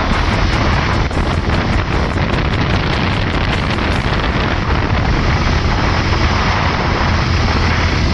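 Steady wind rush buffeting the microphone at road speed on a Bajaj Avenger motorcycle, with the bike's engine running underneath.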